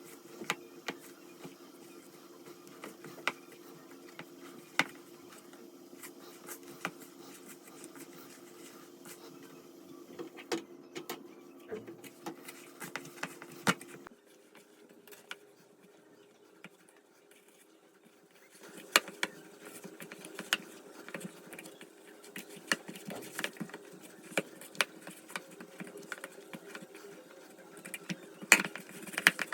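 A small motor hums steadily, cuts out about halfway through and starts again some four seconds later, with many sharp clicks and knocks over it.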